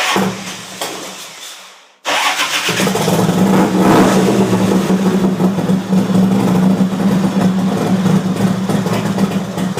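Harley-Davidson V-twin motorcycle engine being started: a first burst fades out over about two seconds, then the engine catches and runs loud and steady.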